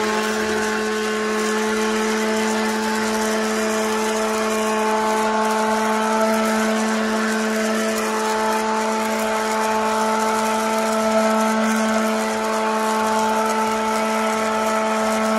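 Electric hand blender running steadily in a stainless steel pot, mixing liquid soap batter of waste cooking oil, coconut oil and lye solution toward trace. The motor's pitch falls away as it is switched off at the very end.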